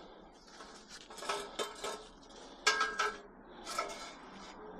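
Pieces of scrap metal clanking and clattering as they are handled and moved, a handful of ringing metallic knocks, the loudest about two and a half seconds in.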